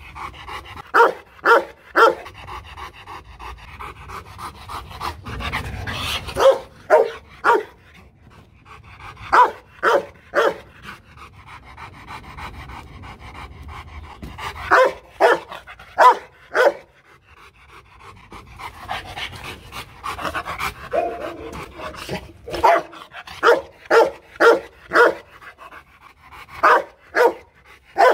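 A Rottweiler barking in quick runs of three or four loud barks every few seconds, panting between the runs.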